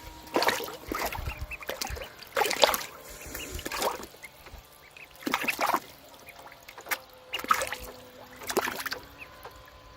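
Blue Swedish ducklings splashing and dabbling in water, in short irregular splashes every second or two.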